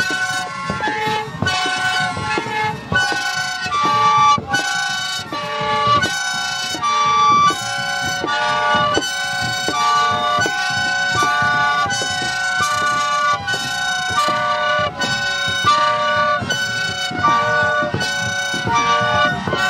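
Chino flutes (flautas de chino) blown by the dancers of a baile chino in short, shrill blasts, about two a second. Two rows answer each other on alternating pitches, each blast the rough, buzzing tone typical of these flutes.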